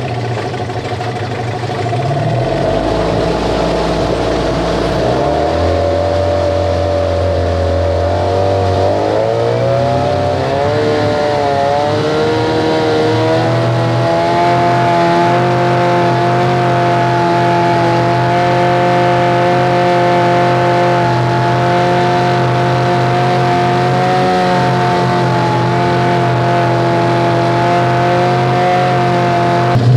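Tadpole outboard motor (a Chinese copy of the Yamaha 9.9/15) running in a test tank, its propeller churning the water. The engine speed shifts up and down during the first dozen seconds, then settles to a steady run.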